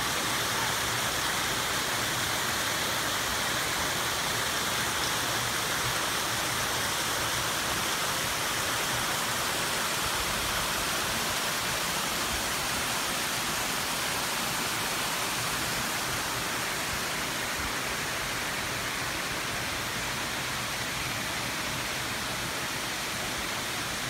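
Waterfall cascades pouring into a pool, a steady, even rush of water that eases slightly toward the end.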